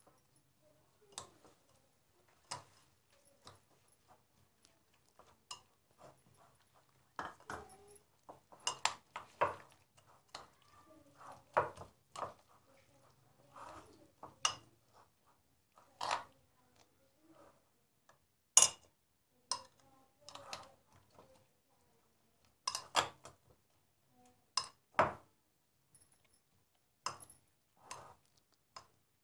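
Metal spoon clinking and scraping against a glass bowl while stirring shredded cabbage into a thin mayonnaise dressing, with irregular clinks and a few sharper knocks.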